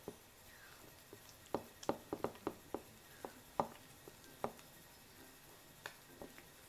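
Silicone spatula stirring a creamy crab-stick and mayonnaise mixture in a bowl: soft wet squishing with irregular sharp clicks and taps as the spatula works the mixture against the bowl. The taps come thick and fast for a couple of seconds, then thin out.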